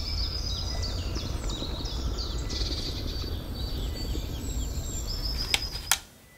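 Small birds chirping and singing in quick falling notes over a steady low outdoor rumble. Two sharp clicks come near the end, and then the sound cuts off.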